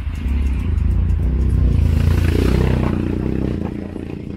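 Ride noise aboard an open tourist road train: a heavy low engine rumble with a rushing noise that swells to its loudest in the middle and then eases off.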